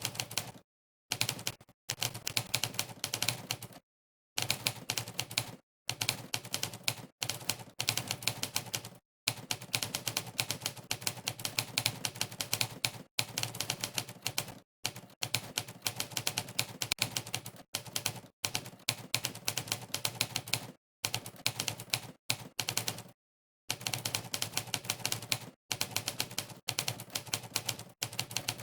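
Monkeytype's typewriter keypress sound effect: a sampled typewriter key clack played for every keystroke, in fast runs of many clacks a second broken by short pauses of complete silence.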